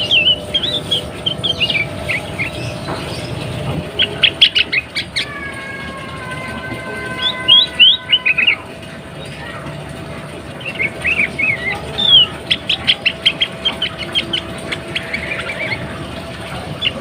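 Sooty-headed bulbul (kutilang) calling: bright chirping phrases and quick runs of repeated notes, in several bouts, sold as the call of a female in breeding condition that sets males singing. For about three seconds mid-way, a steady horn-like chord of several held tones sounds under the calls.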